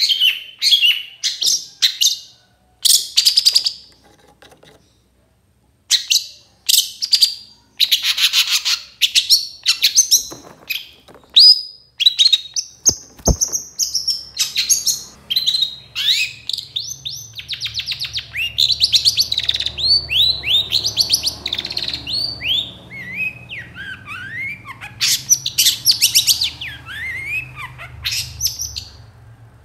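Long-tailed shrike calling: loud harsh chattering calls in short bursts with a brief pause, then, about halfway through, a faster, denser run of quick downward-sliding notes. A faint low hum sits under the second half.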